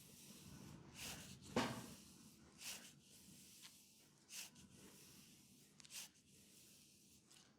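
Hands rubbing and stroking the skin of a leg during a reflexology massage: short, soft swishes every second or two, the loudest about one and a half seconds in.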